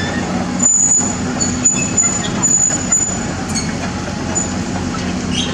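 Caterpillar 320D excavator's diesel engine running steadily under work. A thin high squeal comes and goes, with a few knocks, from about a second in until about three seconds in.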